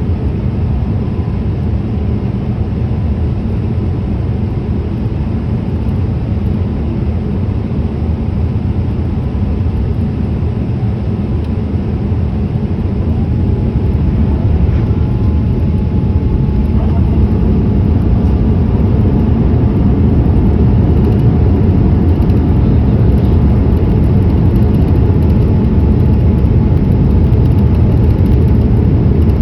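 Boeing 787-8 airliner making a steady, low rumble of engines and airflow during its approach for landing, with a faint steady tone above it. The rumble grows slightly louder about halfway through.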